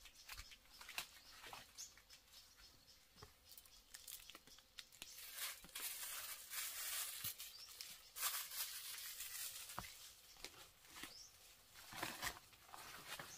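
Faint rustling and crackling, like material being handled or torn, with scattered light clicks and taps; the rustling is louder for a few seconds in the middle.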